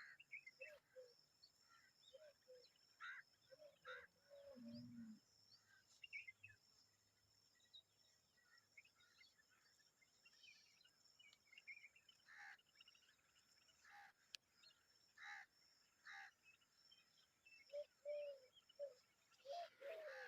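Common babblers, an adult and its chicks, calling faintly: scattered short chirps and squeaky notes, coming thicker near the end.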